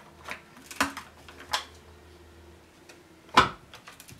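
Clicks and knocks from a new G388 chainsaw being handled and shifted on a wooden workbench, a few light clicks followed by one louder knock about three and a half seconds in.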